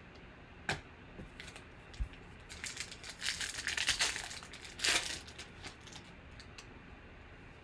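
Foil wrapper of a 2013 Panini Certified football card pack being torn open and crinkled, from about two and a half seconds in to about five seconds. A couple of light clicks come before it.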